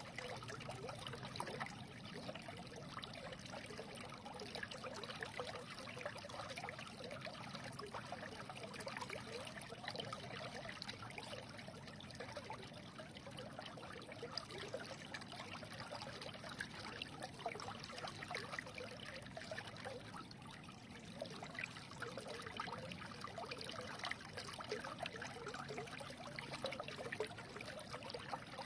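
A small stream trickling and babbling over stones: a steady, even rush of running water full of small gurgles and splashes.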